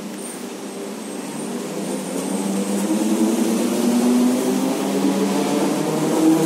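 ÖBB S-Bahn electric multiple unit pulling away and picking up speed. Its drive whines in several tones that rise slowly in pitch while the sound grows louder.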